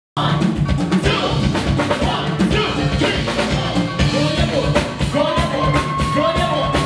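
Live band music cutting in abruptly: a drum kit keeping a steady beat under electric guitar, with a singer's voice over the PA.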